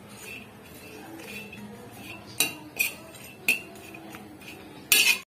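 A steel spoon stirring coconut slices as they dry-roast on a hot tawa (griddle), with a few sharp clinks of metal against the pan and a louder clatter near the end.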